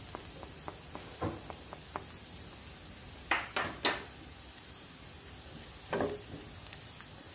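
Chopped onion and garlic sizzling gently in oil and butter in a non-stick frying pan, a steady soft hiss. A few short knocks and scrapes of a silicone spoon and utensils against the pan come about a second in, three times in quick succession just past the middle, and again about six seconds in as the pan is stirred.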